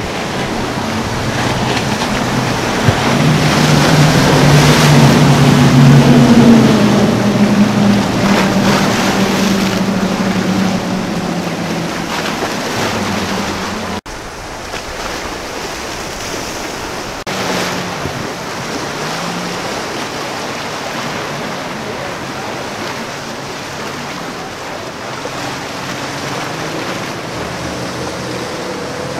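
Outboard engines of sport fishing boats running through breaking waves, over a steady wash of surf and wind on the microphone. The engine drone is loudest a few seconds in and then slides down in pitch as the boat passes.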